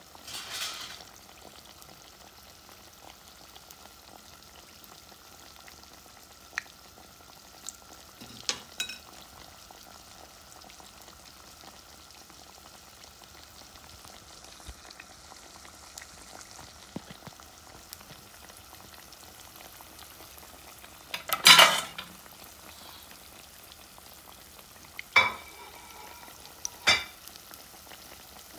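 Battered tilapia fillets shallow-frying in hot oil, a steady sizzle. A few sharp clicks and knocks break through it, the loudest about three-quarters of the way through.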